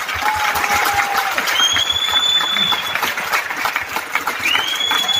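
Large audience clapping, with long high-pitched whistles rising over the applause about a second and a half in and again near the end.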